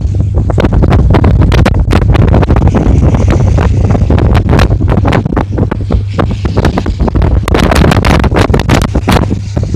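Strong wind buffeting the microphone in rapid, irregular gusts over a steady low drone from the tugboat's engine.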